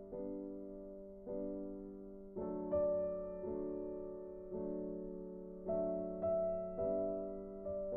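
Slow, soft piano music: chords struck about once a second, each fading away before the next.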